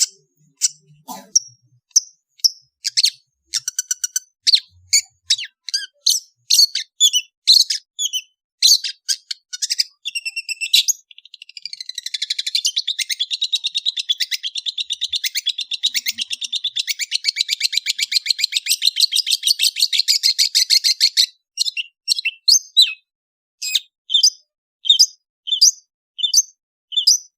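Long-tailed shrike (cendet) singing: sharp, high, repeated short notes about once or twice a second, breaking about ten seconds in into a long, fast chattering trill that stops suddenly near twenty-one seconds, then single sharp notes again.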